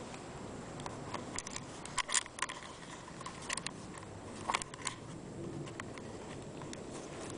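Handling noise: scattered light clicks and rustles, in two clusters in the first and middle parts, over a faint steady background hiss.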